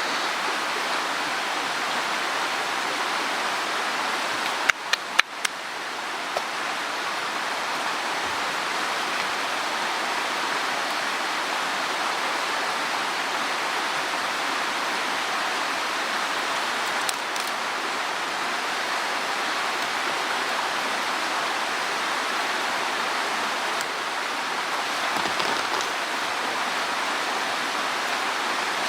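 Mountain stream water rushing steadily over rocks. A few sharp clicks or knocks come about five seconds in.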